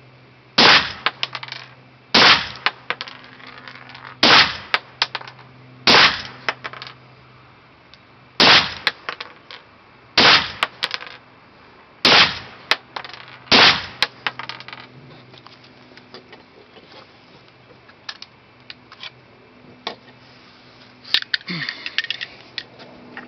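Gas-operated semi-automatic Luger competition rifle in 9 mm Luger firing eight single shots about two seconds apart, each followed by light metallic clinks. Afterwards come scattered metal clicks and a short rattle as the rifle is handled.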